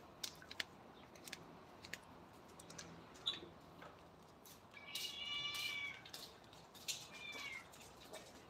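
A cat meowing twice: a high, drawn-out meow about five seconds in and a shorter, falling one about two seconds later. Scattered light clicks sound throughout.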